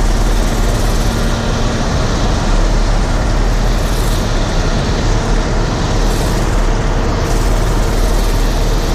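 Harvest machinery running steadily under load, a continuous loud engine and machine drone with a deep low hum.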